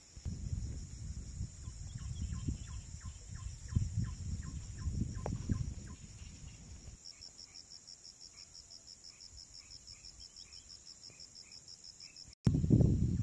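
Insects buzzing steadily at a high pitch, joined about seven seconds in by a pulsing insect trill at about six pulses a second. Over the first six seconds a series of short chirping notes comes about four a second. Low buffeting on the microphone comes in the first half and, much louder, after a cut near the end.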